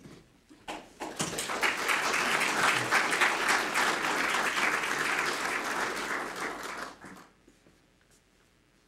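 Audience applauding to welcome a speaker invited to the podium. The clapping starts about a second in, holds steady, and dies away about six seconds later.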